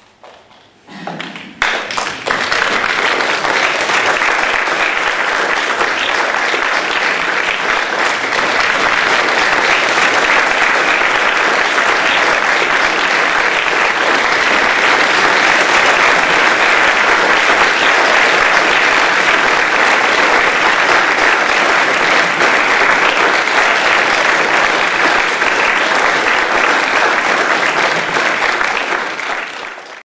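Audience applause: a few scattered first claps in the opening second or two, swelling into steady, dense clapping from a large crowd, fading right at the end.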